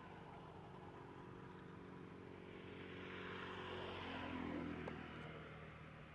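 Faint engine of a passing motor vehicle, growing louder to a peak about four to five seconds in, then fading.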